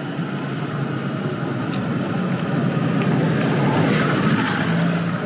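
A motor vehicle running, a steady low engine hum under road noise, growing gradually louder over the first few seconds.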